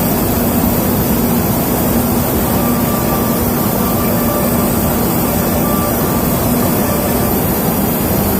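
Steady, loud industrial roar at a steelmaking converter vessel, with a constant low hum running through it.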